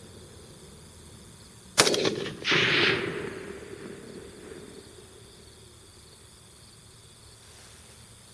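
A single rifle shot from an AR-15 chambered in 6.8 SPC, a sharp loud crack about two seconds in. A second, longer burst of noise follows about half a second later and fades away over the next two seconds.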